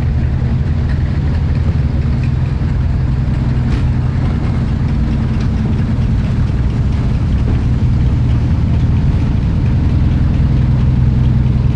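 An engine idling steadily with an even, low hum.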